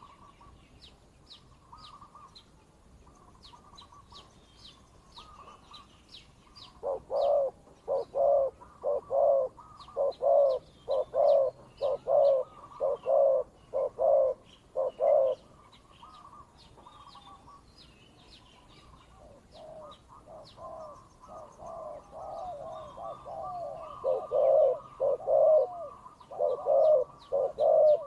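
Doves cooing in rapid repeated notes, about two a second: a decoy dove calling in challenge at a wild one. The cooing starts about seven seconds in, stops near the middle, and builds again in the second half, with faint chirps of small birds throughout.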